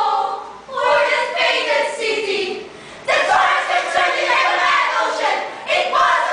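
A group of women's voices singing together in short phrases, with brief breaks between them.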